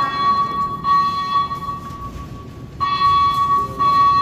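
Building fire alarm speaker-strobe sounding loudly: a shrill tone beeping in groups of three pulses with a pause between groups, over a steady tone at the same pitch. This is the evacuation signal of a fire alarm in alarm mode.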